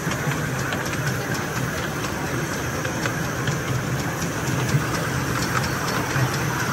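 Ride-on miniature railway train running along its track: a steady rumble of wheels on rails with a low hum from the locomotive and light irregular clicks from the track.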